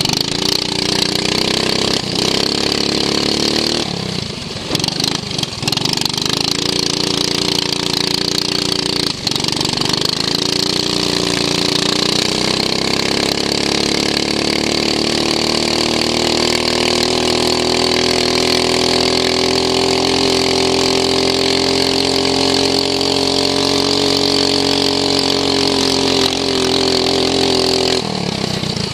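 Racing lawn mower engine running hard, heard from onboard the mower. Its pitch dips briefly twice in the first ten seconds, then climbs slowly and holds high on a long stretch before dropping near the end.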